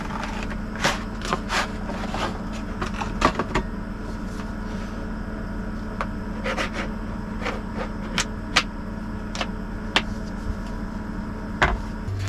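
Short clicks, taps and knocks of a cardboard sushi-kit box and a sushi mold being handled and set down on a table, over the steady hum of a portable air conditioner.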